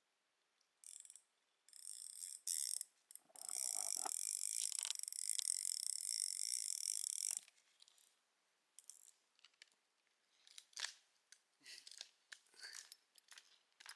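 A mechanical ratcheting whirr that runs for about four seconds, after a few short rasps, followed by scattered small clicks and handling noises.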